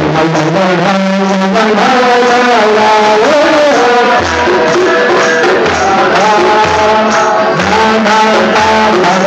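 Live Jewish folk music: a hand drum keeps a steady beat under a held, gliding melody, with voices singing along.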